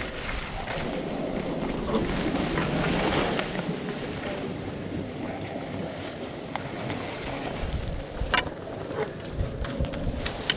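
Skis hissing and scraping over cut-up, packed piste snow, with wind buffeting the camera microphone. A few sharp scrapes stand out near the end as the skier comes to a stop.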